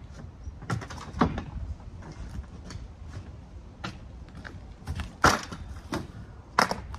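Scattered knocks and clatter from dismantling a plastic shed and handling a metal step ladder as it is lifted, folded and carried, with two sharp knocks near the end.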